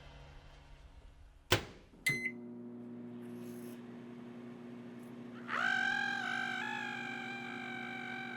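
A microwave oven shut with a thunk and started with a short beep, then running with a steady low hum. About five and a half seconds in, a louder, slightly wavering higher tone comes in over the hum.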